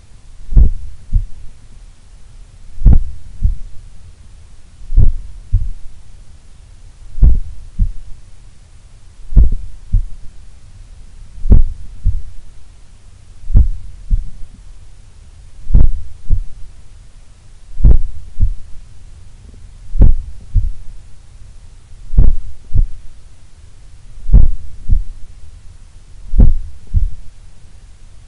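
A resting human heart heard through a stethoscope pressed to the chest: slow lub-dub heartbeats, a pair of low thumps about every two seconds, the first of each pair the louder. The very slow rhythm is a low resting heart rate, typical of an athlete's heart.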